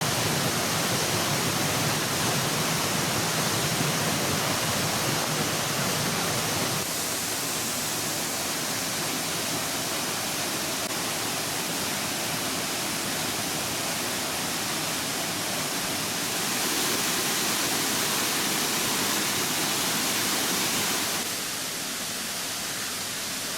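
Waterfall pouring, a steady rush of water. Its loudness drops a little about seven seconds in, rises again past the middle and drops again near the end.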